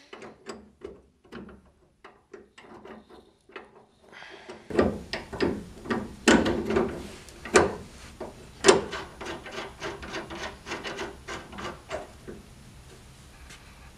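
Metal suspension nuts and bolts being refitted by hand to a rear wheel carrier: a string of irregular clicks and scrapes of metal on metal. The clicks are faint at first and grow louder and busier about five seconds in.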